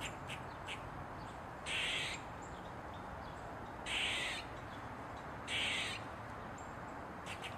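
Eastern gray squirrel barking: a few short, quick barks, then three longer hoarse calls about two seconds apart, then the short barks again near the end. This is the squirrel's alarm call.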